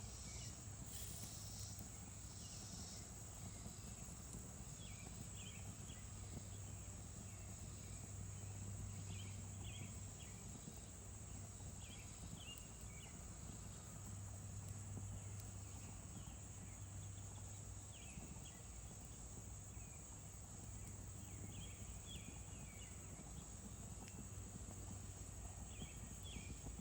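Faint countryside ambience: short bird chirps every couple of seconds over a steady high insect drone, with a low hum underneath.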